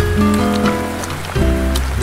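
Background music: sustained chords over a deep bass note, changing a little over a second in, with a steady hiss underneath.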